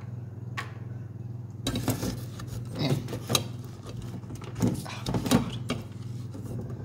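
A utensil scooping and scraping cooked rice out of a stainless steel colander: several short scrapes and light knocks against the colander, over a steady low hum.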